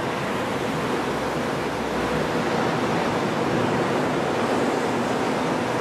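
Suspended monorail train passing overhead on its elevated beam: a steady rushing noise with no distinct clicks or tones.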